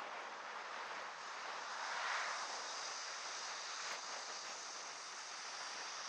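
Steady rush of wind and road noise on a moving vehicle's GoPro, with a brief swell about two seconds in.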